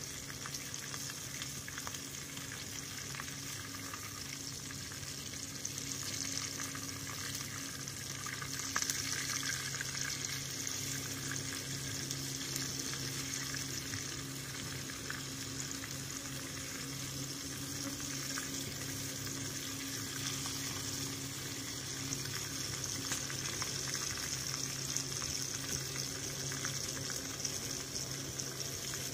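Food sizzling in a small pot on a portable gas stove, stirred now and then, a steady hiss over a steady low hum.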